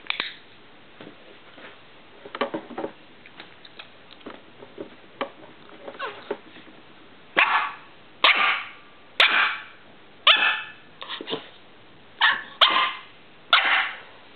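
Young dog barking: a run of about eight short barks, starting about seven seconds in, after a few faint clicks and taps.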